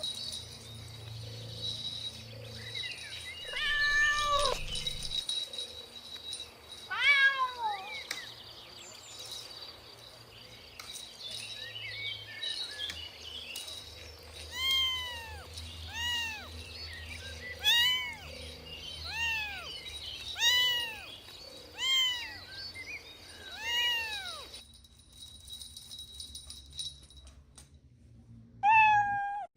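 Kitten meowing repeatedly: short rising-and-falling mews, a couple early on, then a regular string of about seven, roughly one every second and a half, and one more near the end. A faint steady high tone sits behind them until it cuts off abruptly about two thirds of the way through.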